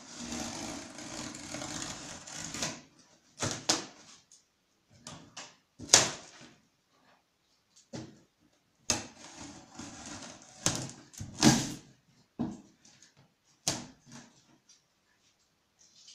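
Packing tape being cut and torn off a large cardboard box. There are two long rasping tearing stretches, one at the start and one about nine seconds in, with short sharp rips and cardboard sounds between and after them.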